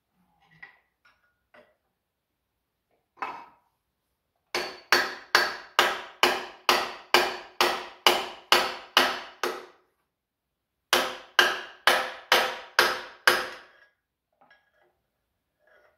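A hammer pounding on metal. One blow comes first, then a steady run of about a dozen blows at two to three a second, a short pause, and seven or eight more. Each blow rings.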